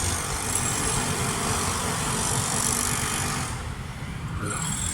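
Power tool working concrete, running with a steady hiss over a rumble; the high hiss drops away about three and a half seconds in and partly returns near the end.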